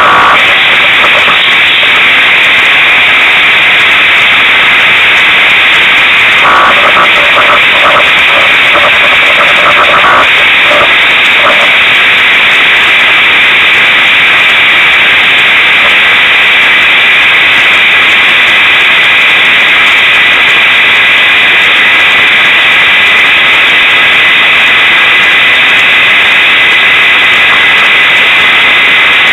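Unimog 404 S trial truck running under way, picked up by a camera mounted on its body as a loud, overloaded, hiss-like noise. A pitched engine note comes through briefly from about six to ten seconds in.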